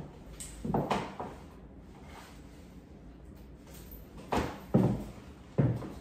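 Footsteps of high-heeled sandals on a hardwood floor: two heel strikes about a second in, a pause, then a run of steps from about four seconds in.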